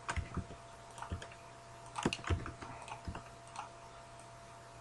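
Faint, irregular computer keyboard keystrokes and mouse clicks, a dozen or so scattered taps at uneven intervals, over a faint steady electrical hum.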